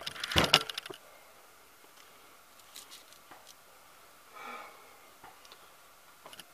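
Camera being handled: hand and clothing rubbing and knocking against the microphone for about the first second. Then it goes fairly quiet, with a few faint sharp ticks and a short soft breath-like sound about halfway through.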